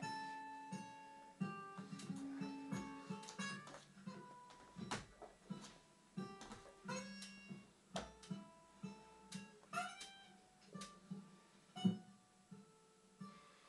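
Instrumental passage of a song: an acoustic guitar picking notes that ring and die away, with some strumming, no singing.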